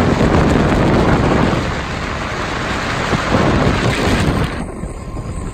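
Wind and rain rushing against a phone's microphone on a fast-moving open boat: a loud, dense rush with a low rumble, which eases and thins about four and a half seconds in.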